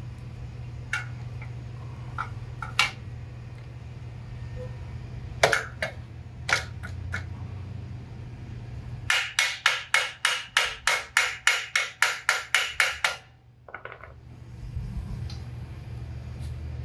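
Hand-tool work on a car clutch pressure plate: a few scattered knocks and clicks, then a fast, even run of about twenty sharp strokes, about five a second, lasting about four seconds.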